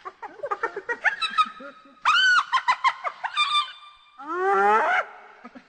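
Hyena calls: a run of short, quick pitched notes in the first second and a half, a high arched cry about two seconds in, then a call that rises in pitch for under a second near the end.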